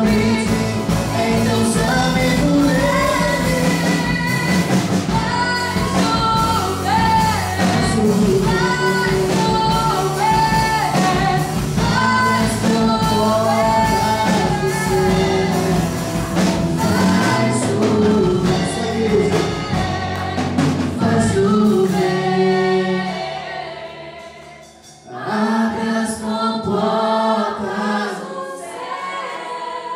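Live gospel worship song from a small church band: a male and a female singer over acoustic guitar, electric bass and drums. About three quarters of the way through, the bass and drums drop out and the sound dips. The voices then come back with only light accompaniment.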